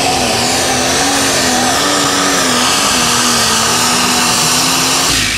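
Ford super stock pulling tractor's engine running wide open under load as it drags the weight sled, its pitch wavering slightly. About five seconds in the driver lets off: the sound drops sharply and the pitch falls.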